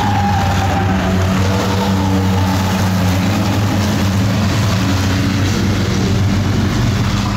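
A pack of sedan race cars running together around a short oval track, their engines overlapping in a steady, loud mix with no single car passing by close.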